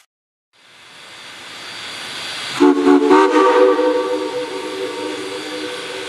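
Shay geared steam locomotive's whistle sounding several tones at once: a short toot, then a longer blast that tapers off, over a steady hiss of steam fading in.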